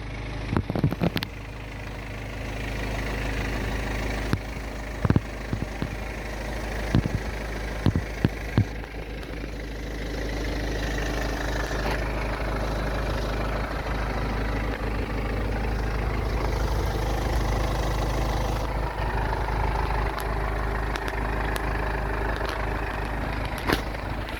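A vehicle engine running with a steady low hum, growing louder twice for several seconds, with a few sharp clicks over it.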